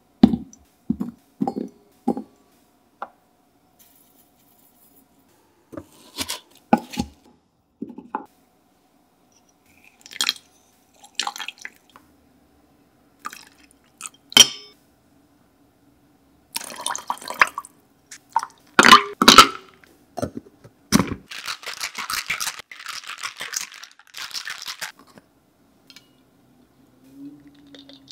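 A cocktail being made in a stainless steel shaker tin: soft knocks as strawberries and cucumber go in and are muddled, liquid poured in about halfway through, then loud clinks and several seconds of dense ice rattling as the shaker is shaken.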